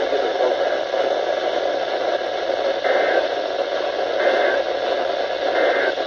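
Radio receiver static: a steady hiss with three faint short blips about a second and a half apart.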